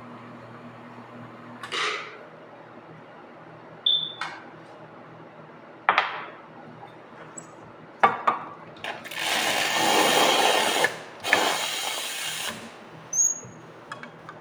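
Coffee-bar work at an espresso machine: a low machine hum, several short knocks and clatters, then a noisy mechanical burst of about two seconds followed by a shorter one.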